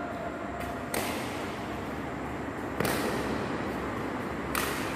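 Badminton racket strings striking a shuttlecock in a rally: three sharp hits a little under two seconds apart, over a steady background hiss.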